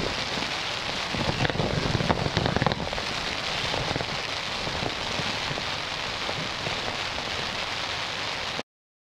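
Heavy rain pouring down in a storm squall: a steady, dense hiss of rain with pattering drops. It stops abruptly near the end.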